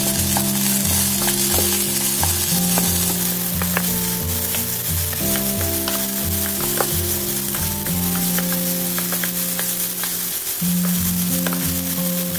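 Rice frying and sizzling in a nonstick pot while a wooden spatula stirs it, with scattered light scraping clicks of the spatula. Background music with steady low notes plays throughout.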